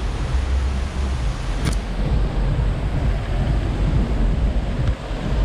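Steady rushing noise of a waterfall, with wind rumbling on the microphone. A sharp click comes about a second and a half in.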